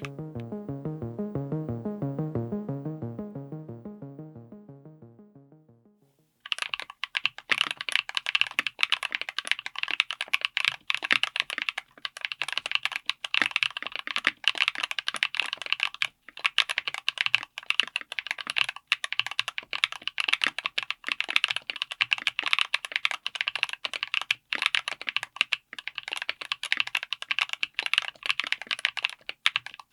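A short bit of music with quick repeating notes fades out over the first six seconds. Then rapid, continuous typing on a mechanical keyboard with Gateron Smoothie Banana full-POM tactile switches, a dense stream of sharp keystroke clicks.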